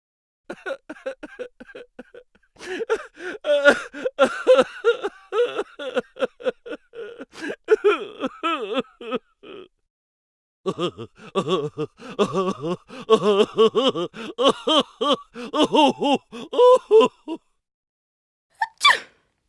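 A voice making rapid, chattering vocal sounds in two long runs of quick pitched syllables, about nine and seven seconds long, with a short rising sound near the end.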